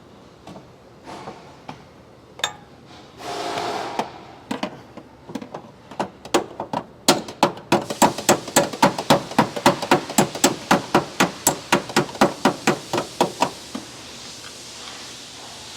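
Body hammer tapping on the Tesla Model 3's quarter panel to work its edge and body line straight: a few scattered taps at first, then a steady run of quick strikes, about four a second, that stops near the end.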